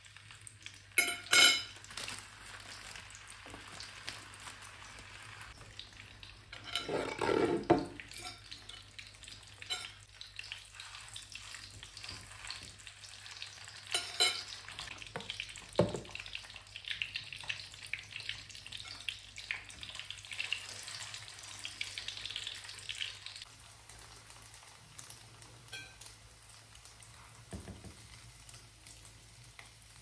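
Hot dog sausages sizzling in hot oil in a frying pan, a steady hiss that eases about three-quarters of the way through. Sharp clinks of a fork against the pan and plate come about a second in and twice more later, and a louder rattling scrape comes about a quarter of the way through.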